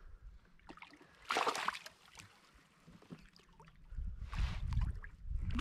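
A hooked northern pike thrashing at the surface beside a canoe: one loud splash about a second in. Near the end, water sloshing against the hull with a low rumble.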